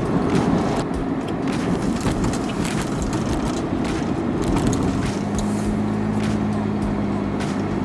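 Car driving on the road, heard as steady tyre and road noise with engine drone; a steady low hum comes in about five seconds in. The car is a Daihatsu Wake kei car.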